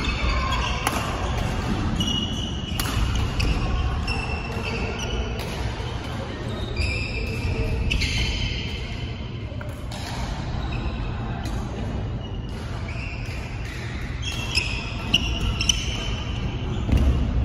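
Badminton doubles play on an indoor court: shoes squeaking on the court floor again and again, with sharp racket hits on the shuttlecock, several in quick succession near the end, over a steady low hum of the hall.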